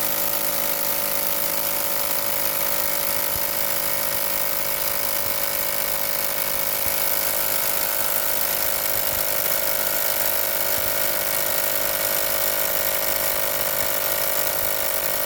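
Impact wrench hammering steadily in reverse against a 3/8-inch-drive ratchet held locked, running nonstop. The ratchet is holding against the impacts.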